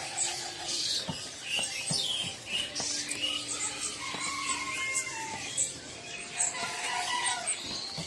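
Many caged songbirds chirping and whistling at once: a jumble of short, high-pitched chirps with occasional longer whistled notes.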